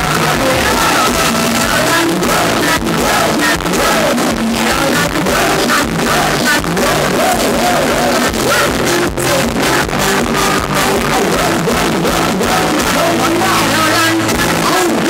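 Live Thai ramwong band music, loud, with a man and a woman singing into microphones over a steady drum beat.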